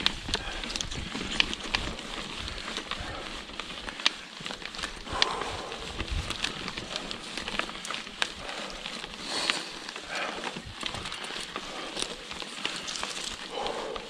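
Mountain bike riding a dry dirt forest singletrack: tyres crunching over dirt, leaves and twigs, with frequent sharp clicks and rattles from the bike jolting over roots and bumps.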